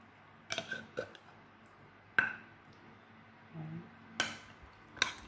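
Metal spoon knocking and clinking against a glass bowl as marinade is spooned over pork ribs: about five separate clinks, the sharpest about two seconds in.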